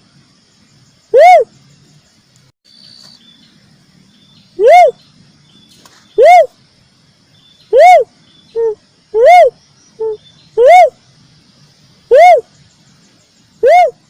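Cuckoo-dove (uncal) lure call: a loud single hooting note that rises then falls, repeated about every one and a half seconds, nine times, with a longer pause after the second. Two fainter, shorter, lower notes come in between, past the middle.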